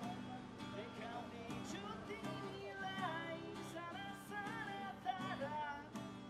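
A man singing while strumming an acoustic guitar, the chords ringing steadily under his wavering vocal melody.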